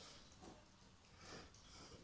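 Dog eating food off the floor, faint irregular chewing.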